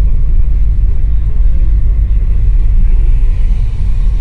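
Car driving in city traffic, heard from inside the car as a loud, steady low rumble.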